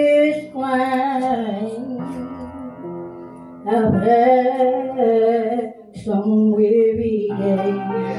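A woman sings a worship song into a handheld microphone, amplified through a PA speaker, in phrases of long held notes over sustained instrumental accompaniment.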